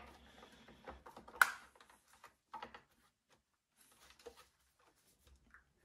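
Small plastic clicks and rattles as the old flow meter of an opened Melitta CI Touch coffee machine is unplugged and worked loose by hand. One sharp click about a second and a half in, then a few fainter ticks.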